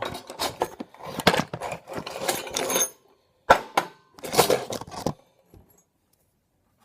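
Metal clinking and clattering as loose iron pieces of a microwave oven's core are knocked and rattled out, with a sharp metal knock about halfway through and a second burst of clatter after it.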